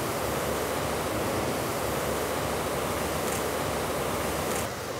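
Steady rushing hiss of fountain water splashing and falling.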